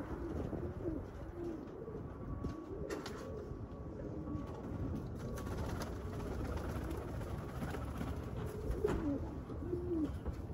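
Domestic pigeons cooing over and over, over a low rumble of wind on the microphone.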